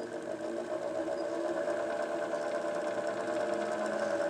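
Wood lathe motor running with a rough dogwood crotch blank spinning on it, a steady whine that rises a little in pitch and grows louder as the speed is brought up toward about 1,010 rpm. The blank runs smoothly, without wobble or thumping.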